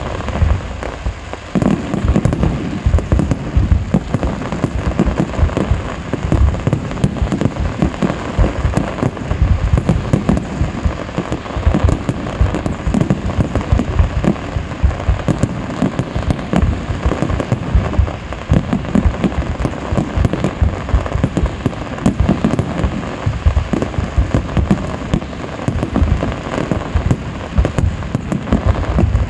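Aerial fireworks display: a dense, continuous barrage of shell bursts and bangs, many a second with no let-up.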